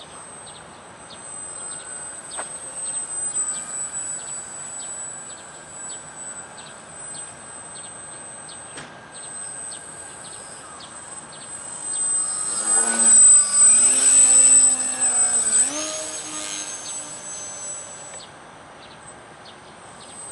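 Small electric RC airplane's brushless motor whining as the plane flies past, swelling loud for a few seconds just past the middle with its pitch wavering and then dropping as it goes by. A thin steady high whine and faint rhythmic chirping run underneath.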